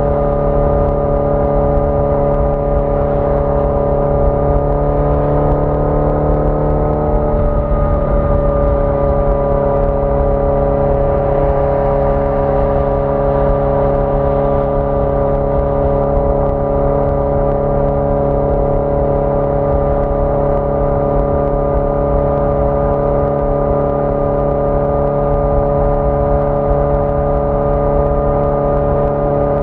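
1981 Yamaha XJ650 Maxim's air-cooled inline four-cylinder engine running at a steady cruise on the move, its pitch rising slightly and then easing off about seven seconds in before holding steady.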